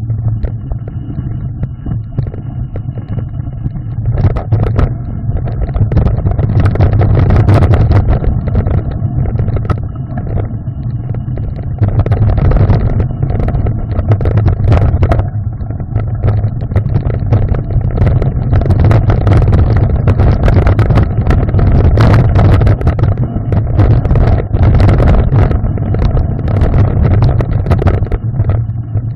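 Mountain bike rolling fast down a rocky gravel trail, heard from a handlebar-mounted camera: constant wind buffeting and tyre rumble on the microphone, with frequent sharp knocks and rattles as the bike runs over stones. It gets louder after the first few seconds.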